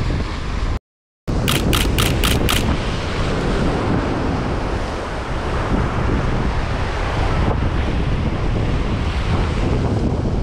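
Ocean swell breaking and washing against breakwater boulders, with wind buffeting the microphone. The sound cuts out for a moment about a second in, then comes back with a quick run of five sharp clicks.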